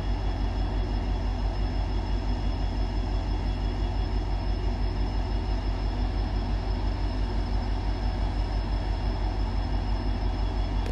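EMD diesel locomotive's two-stroke engine running as the train approaches slowly: a steady low throb that pulses evenly a few times a second, with a thin steady high whine above it.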